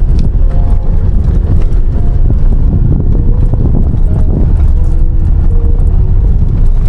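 Tata Harrier driving over a rough, unpaved mountain road: a heavy, steady rumble from tyres and suspension, with many small rattles and knocks and wind on the microphone.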